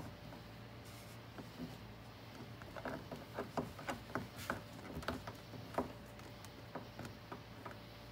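Hand screwdriver tightening a screw into a car's vinyl door card: a run of small irregular clicks and creaks, busiest from about three to six seconds in.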